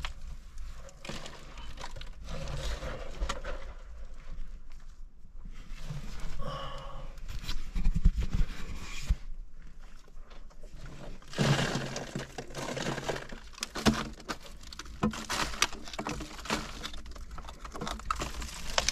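Rock being worked by hand: gritty scraping and irregular sharp clicks of small stones and rock fragments being pried loose and handled, busiest in the second half.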